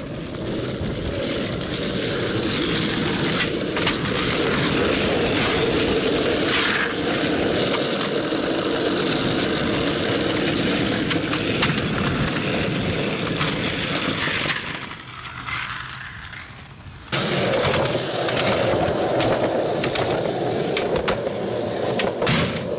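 Skateboard wheels rolling on pavement, with scattered clacks of the board popping and landing. The rolling dies down for a couple of seconds, then cuts back in loudly about seventeen seconds in.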